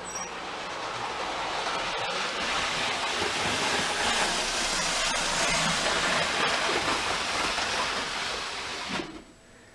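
Model Eurostar train running fast over the layout's track, its motor and wheels making a steady rushing whir. The sound grows louder over the first few seconds and drops away sharply near the end.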